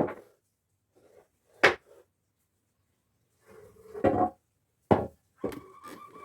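A few separate wooden knocks and clunks, as timber pieces are handled and set down, with quiet between.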